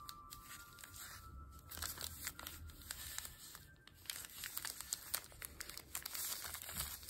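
Paper wrapper of an individually wrapped mochi crinkling and rustling as it is handled and unfolded, in many small crackles from about two seconds in, over soft background music.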